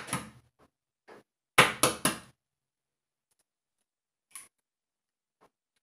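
An egg being knocked against the rim of a ceramic bowl to crack it: a sharp knock at the start, then three quick knocks about a second and a half in, followed by faint clicks as the shell is pulled open.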